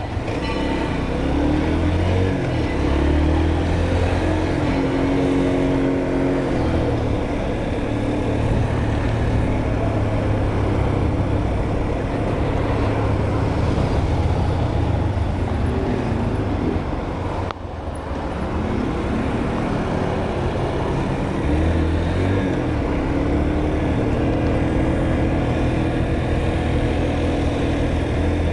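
Motorcycle engine running under way, its pitch rising and falling with throttle and gear changes, over steady wind and road noise. The engine sound drops briefly about seventeen seconds in, then picks up again.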